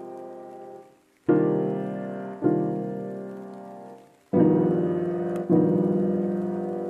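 Background piano music: slow held chords, each struck and left to fade, with brief silent breaks between phrases.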